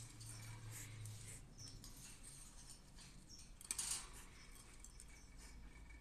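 Cockatiel hissing: one short, sharp hiss about four seconds in, with a few faint high chirps around it.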